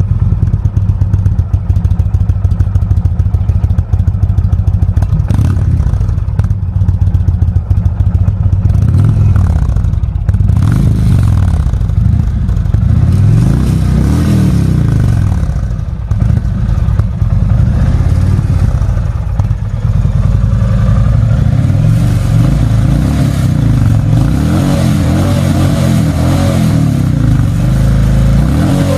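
Stock Indian Chieftain V-twin running through its factory exhaust. It idles at first, is revved up and down several times from about nine seconds in, then settles into steadier running.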